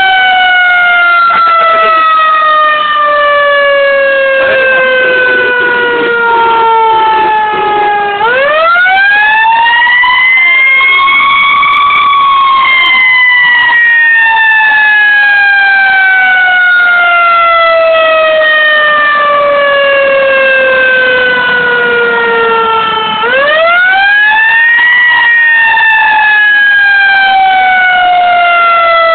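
Fire engine siren sounding a slow wail. The pitch sinks slowly, climbs quickly about eight seconds in, then sinks slowly for about ten seconds before climbing again about four-fifths of the way through.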